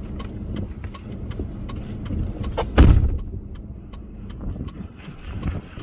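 Low rumble inside a vehicle's cabin, with faint repeated ticks and one loud thump about three seconds in.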